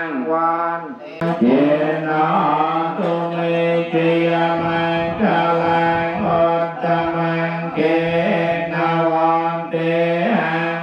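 Voices chanting in unison on one steady low pitch, the vowels shifting and short pitch slides rising and falling over it, with a brief break about a second in: funeral chanting.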